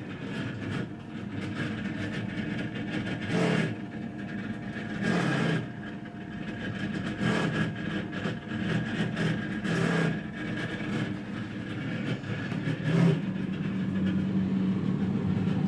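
Frigidaire refrigerator's fan running very loud: a steady hum with a high whine over it, swelling louder every few seconds.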